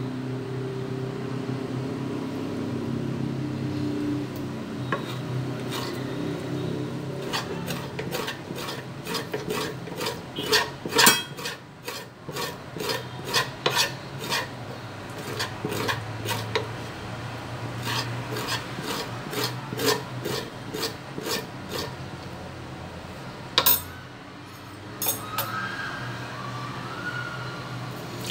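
Hog intestine being scraped with a small blade on a wooden cutting board, to strip the inner lining for sausage casing: repeated rasping strokes, with a run of quick strokes through the middle, over a steady low hum.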